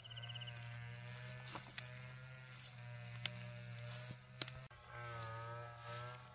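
Several sharp snaps of wild fern shoots being broken off by hand, over a steady low hum and wavering sustained tones.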